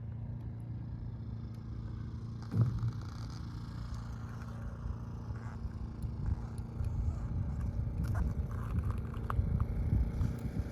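Ice auger motor running while drilling holes through lake ice, a steady hum with a rougher, uneven rumble that grows louder from about six seconds in.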